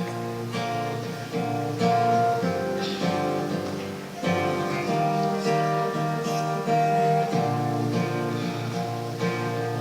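Acoustic guitar playing an instrumental chord intro, with the chords changing every couple of seconds.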